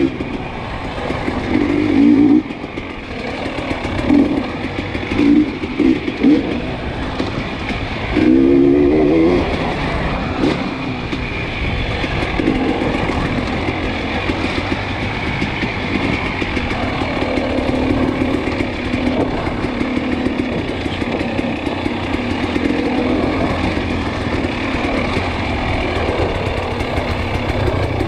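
Dirt bike engine under way: revving in short bursts through the first ten seconds or so, the pitch rising with each burst of throttle, then running at a steadier drone for the rest.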